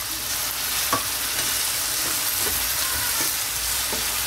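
Shoestring-cut potatoes sizzling in hot oil in a nonstick frying pan, stirred with a wooden spatula that scrapes against the pan a few times.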